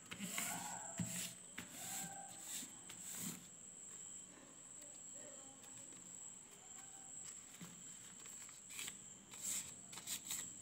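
Sheet of paper rustling and being creased by hand on a tabletop: soft scattered crinkles and taps, most of them in the first few seconds and again near the end. A faint steady high whine runs underneath.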